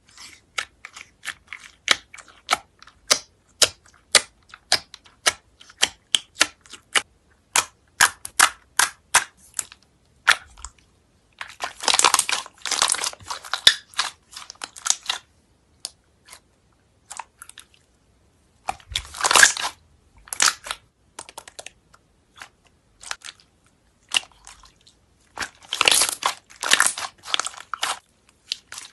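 Red clear slime packed with small clay fruit slices being poked, squeezed and stretched by hand: for about the first ten seconds a run of sharp clicks and pops, roughly two or three a second, then three dense spells of crackling as it is squished and pulled apart, with scattered pops between.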